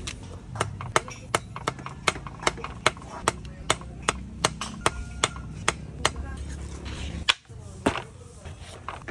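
Knife chopping winged beans on a thick wooden chopping board: sharp, even taps about two and a half a second, with a short pause about seven seconds in before a couple more cuts.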